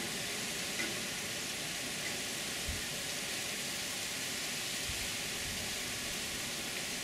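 Steady, dense hiss of a heavy, wind-driven storm downpour, with a couple of faint low thumps.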